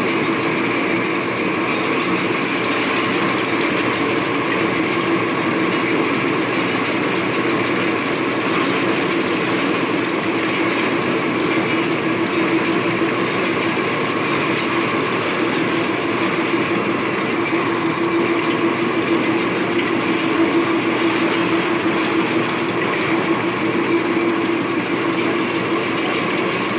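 Metal lathe running steadily while machining an iron shaft, with a steady whine over the noise of the machine.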